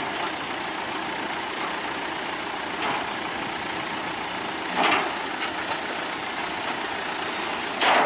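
An engine idling steadily. Two short knocks land about five and eight seconds in as the steel loading ramps at the back of the truck are shifted.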